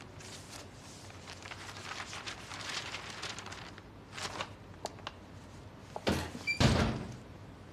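Books and papers handled and shuffled on a wooden desk, with scattered light knocks, and a louder wooden thump and slide about six seconds in.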